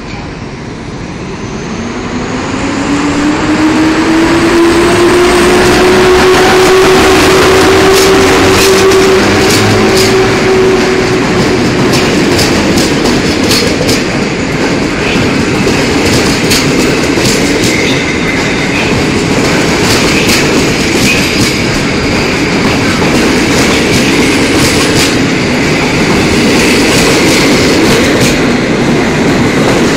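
PKP class EU07 electric locomotive and its passenger coaches rolling past at close range, loud. A whine climbs in pitch as the locomotive picks up speed and fades away as it passes. The coaches follow with a steady rolling roar and irregular clickety-clack of wheels over rail joints.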